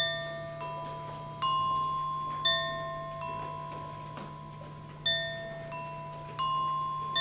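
A slow melody of struck, bell-like metal notes, one every second or so, each ringing out and fading before the next, with a pause of nearly two seconds midway.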